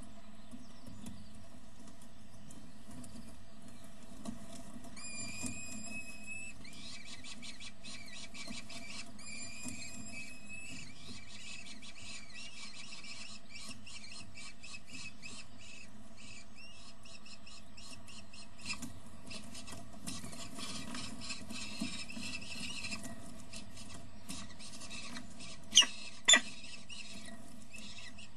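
Peregrine falcon chicks begging with high, thin cheeping calls in rapid runs as the adult feeds them, over a steady electrical hum. Two loud, sharp sounds stand out near the end.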